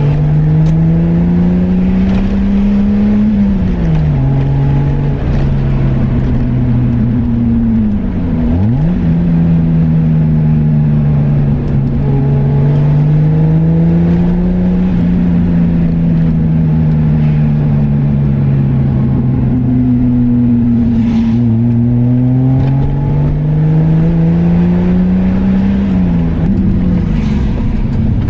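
BMW E30 engine pulling through the gears of its manual gearbox. The engine note climbs slowly in each gear and drops sharply at each upshift, about four times, over steady road and wind noise.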